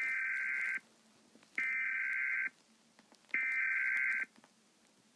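Emergency Alert System SAME header: three identical bursts of screeching digital data tones, each under a second long and spaced about a second and a half apart, the coded preamble that opens an EAS broadcast alert.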